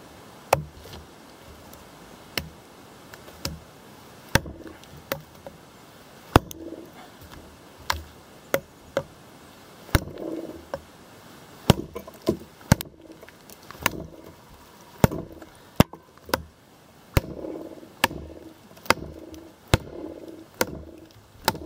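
Condor Pack Golok, a compact machete-style chopper, chopping into a log: a long series of sharp wooden chops at an uneven pace, about one to two strikes a second.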